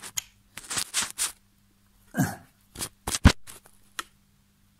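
A 10mm spanner working the neutral-sensor adapter tight into a Triumph Trident T160 gearbox casing, metal on metal. A few short scrapes, then a quick run of clicks about three seconds in, with one sharp, loud click among them.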